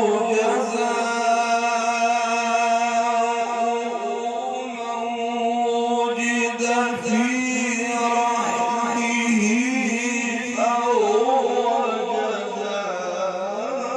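A man's voice in melodic Quran recitation (tajweed), holding one long sustained note that turns into wavering ornaments in the second half.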